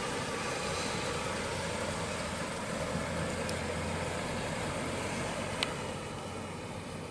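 1977 Mercury Cougar XR7's V8 engine running steadily at low speed as the car rolls slowly past.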